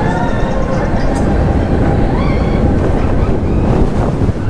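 Wind rushing over the microphone and the steady rumble of a Vekoma suspended family coaster train running through banked turns, with short high-pitched sounds over it near the start and again about two seconds in.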